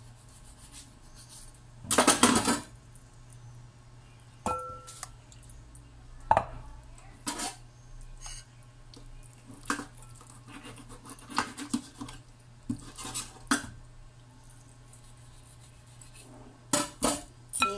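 Kitchen utensils and dishes knocking and clinking on a countertop in scattered single strikes. A louder rattling clatter comes about two seconds in, and a short ringing clink about four and a half seconds in.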